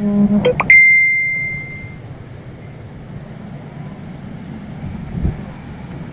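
A quick rising chime that ends in a single high bell-like ding, ringing out for about a second, over a steady rushing noise.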